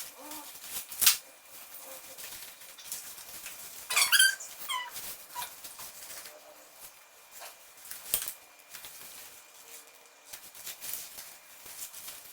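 Baby carrier being taken off and handled: sharp buckle clicks and rustling, with a short run of high squeaks falling in pitch about four seconds in.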